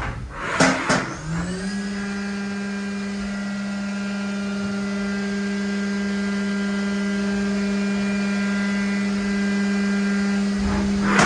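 CNC vertical mill spindle running a cutter into a vise-held part under flood coolant. A short rush of noise comes just before the spindle's steady pitched whine, which rises briefly as it comes up to speed about a second and a half in and then holds level.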